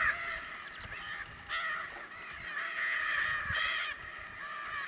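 Macaws giving harsh, rasping squawks, several calls in a row, the longest ones in the middle.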